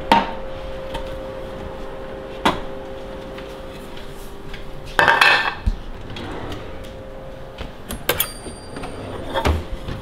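Kitchen pans being handled: black frying pans taken off a shelf and out of a cabinet, giving a few separate knocks and clatters, the busiest about halfway through. A faint steady hum runs beneath and stops about three-quarters of the way in.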